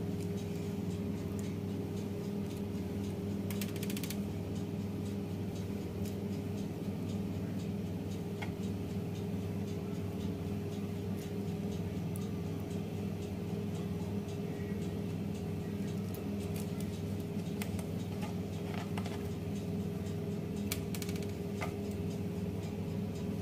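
A steady low hum throughout, with a few soft taps and rustles as tomato slices are laid onto parchment on a baking tray.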